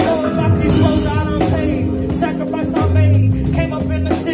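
Live band playing a hip hop song: drum kit, electric guitar and keyboard, with deep bass notes and a singing voice over the music.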